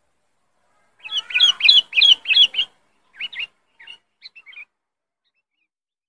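Sooty-headed bulbul (kutilang) calling loud and sharp: a quick string of about eight clear whistled notes, then a few softer notes that stop well before the end. This is the call used as a lure (pikat) for the species.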